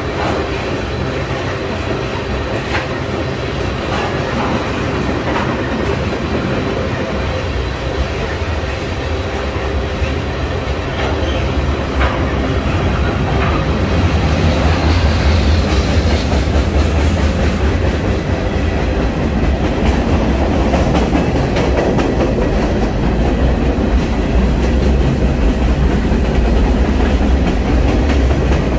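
Freight train tank cars rolling past close by: a steady heavy rumble of steel wheels on the rails with occasional clacks, growing a little louder about halfway through.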